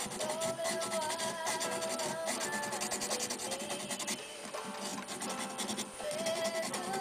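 Rapid, scratchy rubbing as the hardened jinoko lacquer ground layer on a bamboo spoon is ground by hand with an abrasive, over slow background music with held notes.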